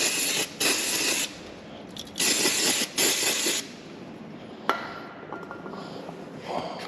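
Aerosol cleaner sprayed in four hissing bursts onto dirty brake caliper pistons, then a single sharp metallic clink with a brief ring a little under five seconds in.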